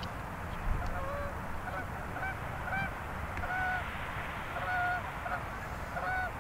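Canada geese honking: a steady string of short honks, about two a second, some with a rising or falling inflection.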